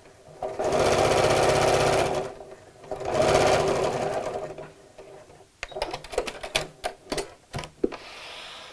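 Electric sewing machine stitching a seam in two runs, one of about two seconds and a shorter one just after, then a scatter of clicks and fabric rustling as the work is handled and pulled off the machine.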